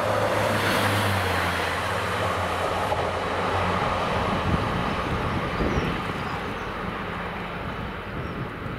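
Northern Pacer diesel railbus passing: a steady diesel engine drone with the rumble of its wheels on the rails. It fades over the last few seconds as the train moves away.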